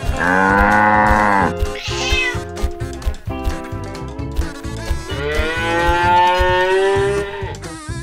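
A cow moos for about a second and a half, a cat gives a short meow, and near the end comes another long drawn-out animal call, over light plucked background music.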